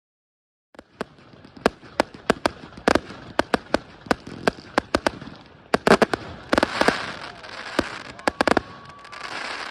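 Fireworks going off: a rapid run of sharp bangs and cracks over continuous crackling, starting about a second in, with a thin whistling tone near the end.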